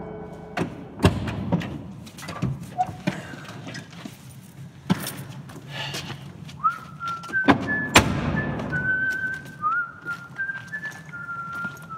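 Several sharp knocks and thuds, the loudest about a second in and just before eight seconds. From about six and a half seconds someone whistles a slow tune, each held note sliding up at its start.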